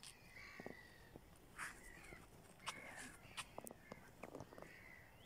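Faint outdoor quiet with distant bird calls repeating several times and a few light clicks.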